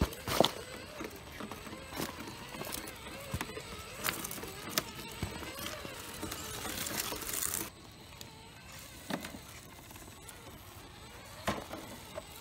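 Traxxas TRX-4 radio-controlled crawler climbing over loose rock: a faint wavering electric-motor whine under irregular clicks and knocks of tyres, body and shifting stones. The background hiss drops off suddenly about two-thirds of the way through.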